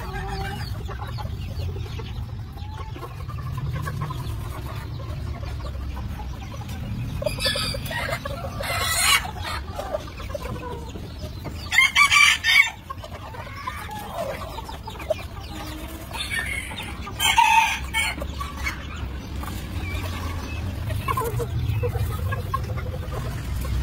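Chickens clucking, with a rooster crowing about three times, the loudest crow near the middle, over a steady low rumble.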